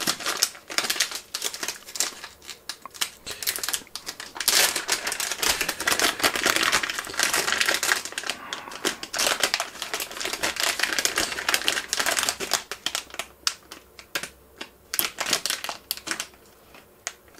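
Metallised anti-static bag crinkling and crackling as it is unwrapped by hand and a controller board is slid out of it: a dense run of small irregular crackles that thins out near the end.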